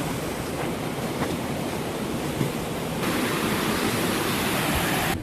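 Steady rushing of wind across the microphone, a step louder about three seconds in.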